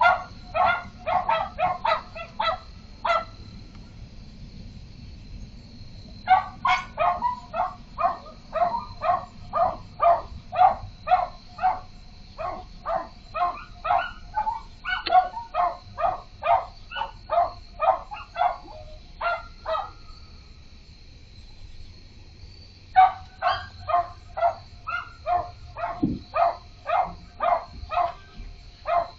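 A dog barking repeatedly, two to three barks a second, in three bouts separated by pauses of a few seconds.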